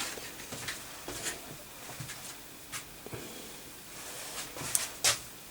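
Faint, scattered clicks and taps of small parts and tools being handled on a workbench, with a sharper click about five seconds in.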